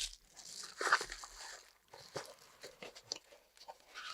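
Flashlight box contents being handled: irregular rustling and crinkling with short clicks and taps, loudest about a second in.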